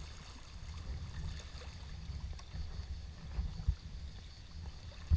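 Sea water lapping and sloshing around a sea kayak's hull, a low steady rumble, with a couple of dull knocks a little past halfway.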